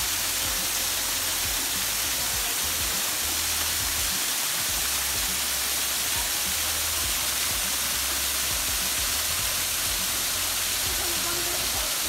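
Small waterfall running in thin streams over layered rock ledges into a pool: a steady hiss of falling water, with a low rumble that comes and goes.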